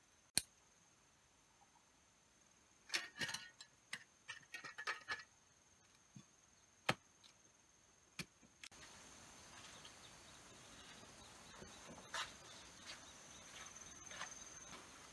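Scattered sharp clicks and snaps of sticks and cord being handled, bunched about three to five seconds in. After about nine seconds a steady outdoor background noise takes over, with a few soft rustles of leaves.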